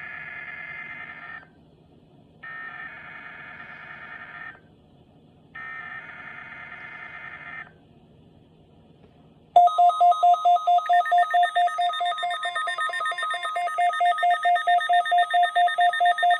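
NOAA weather radio SAME alert header: three warbling digital data bursts, about two seconds each with a second's pause between. After a short pause comes the weather radio receivers' alert alarm, a loud, fast-pulsing beep with a second, higher tone joining about a second later.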